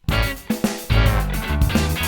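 Upbeat background music with a strong, regular beat and heavy bass, starting abruptly out of silence.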